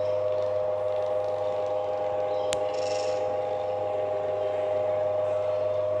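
Table fan motor, blade removed, humming steadily on mains power; its capacitor has failed, the fault that makes it hum and vibrate. A single sharp click about two and a half seconds in.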